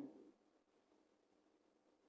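Near silence, with only the fading end of a spoken word at the very start.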